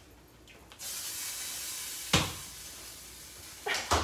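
Arepas frying in a pan on the stove: a sizzle starts suddenly about a second in and carries on, with a sharp knock of a utensil against the pan about two seconds in and a few clacks near the end.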